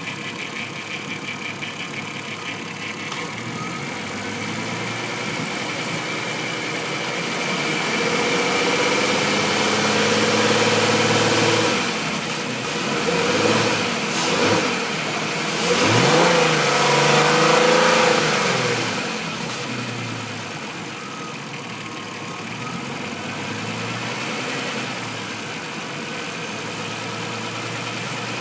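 Volkswagen T5 engine idling with a knock, revved up and down several times in the middle and then settling back to idle. The knock at idle is the fault being shown.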